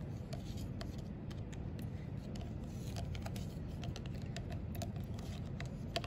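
Plastic spoon stirring salt into soapy water in a plastic cup, with light irregular clicks and taps as it knocks and scrapes the sides of the cup, over a steady low hum.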